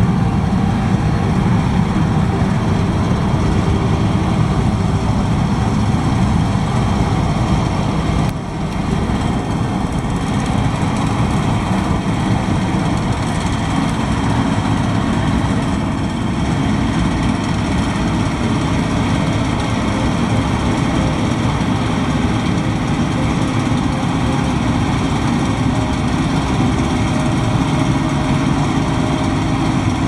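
Case IH 7230 combine harvester running in a wheat field: a loud, steady drone of its engine and machinery, with a short dip in level about eight seconds in.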